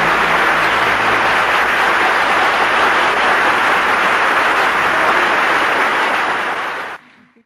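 Audience applauding at the end of a song, with the band's last notes dying away under it at the start; the applause cuts off abruptly about seven seconds in.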